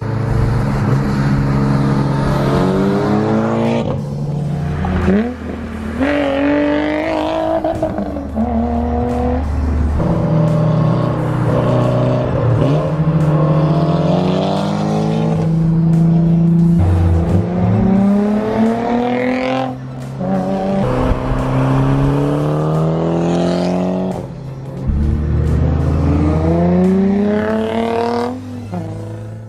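Mitsubishi Lancer Evolution X turbo four-cylinder and Nissan 350Z V6, both on Tomei aftermarket exhausts, accelerating hard through the gears. The engine note climbs in pitch and drops back at each upshift, several times over.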